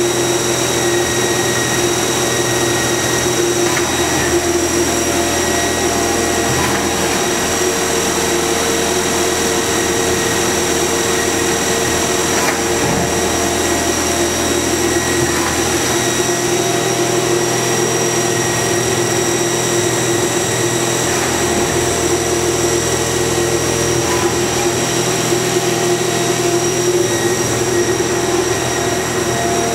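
Hitachi Seiki HT20SIII CNC turning center running through a program, its spindle turning with a steady hum and several constant high whines over an even mechanical noise.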